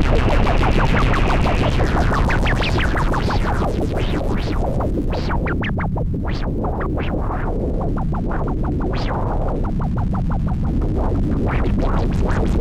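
Electronic music soundtrack: a constant low rumble under a hiss that fades out about two seconds in, followed by a scatter of short synthesized chirps and blips, some in quick runs, with a swell rising near the end.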